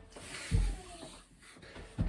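A body landing on the floor during a burpee: a heavy, dull thud about half a second in and another near the end, with hard breathing between.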